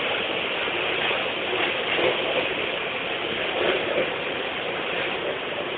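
Stepper-motor multihead weighing scale for rice running with its packing machine: a steady mechanical clatter with a few slightly louder knocks.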